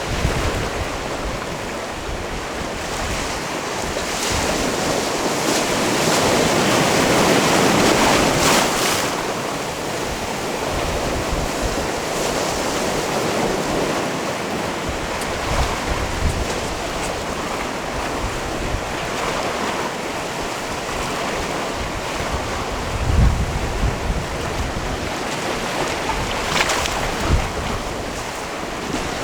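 Sea waves washing in and out on a rocky shore, one wave swelling louder and breaking about a quarter of the way in. A few low thumps of wind on the microphone come later.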